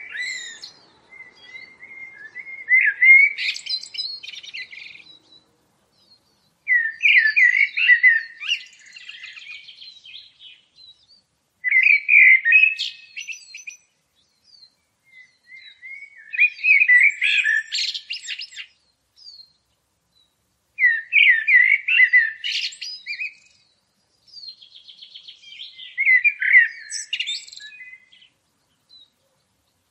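A songbird singing: short twittering song phrases of about two seconds, repeated every four to five seconds with quiet gaps between.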